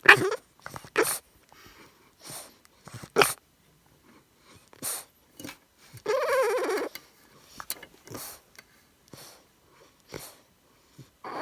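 English bulldog puppy vocalizing in short, separate breathy bursts, with a louder pitched call lasting almost a second about six seconds in.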